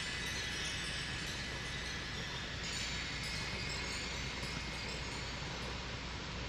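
Steady hiss with a low hum underneath, unchanging throughout, with no distinct event.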